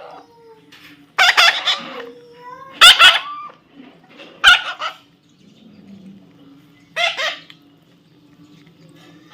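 Parrot squawking: four loud, harsh calls, the first longer and broken into several notes, the others short.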